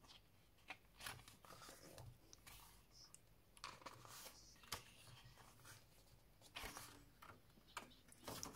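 Glossy paper pages of an album photobook being turned and handled by hand: faint, irregular rustles and flaps, roughly one a second.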